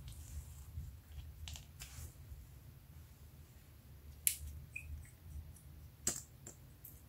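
Hands working slime with faint soft clicks, then a sharp click about four seconds in and another about six seconds in as a liquid glitter eyeshadow tube is handled and its applicator wand is pulled out.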